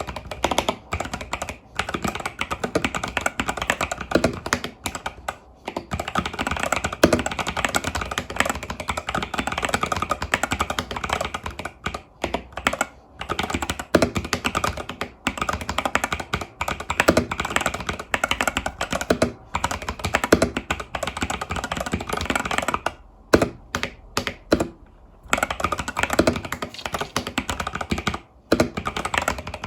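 Fast continuous typing on an Epomaker TH80 Pro mechanical keyboard with Epomaker Budgerigar tactile switches and stock keycaps, a dense run of key clacks broken by a few short pauses, the longest about two-thirds of the way in.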